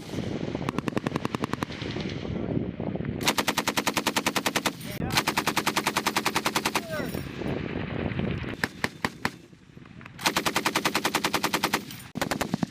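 Machine guns firing bursts of automatic fire, each burst a rapid even string of shots lasting about one to one and a half seconds, with short pauses between bursts and a quieter gap about nine seconds in.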